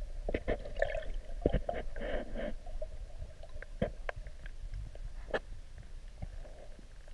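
Underwater sound of a camera being moved through a river: water gurgling and swishing around it, with many sharp clicks and knocks in the first two and a half seconds, then scattered single clicks.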